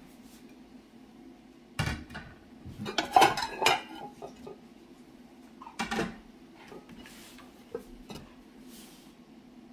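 Dinner plates clinking and clattering against each other as they are lifted off a stack and set down, in a few separate bursts with the loudest cluster of knocks about three seconds in. A tea towel rubs over a wet plate near the end.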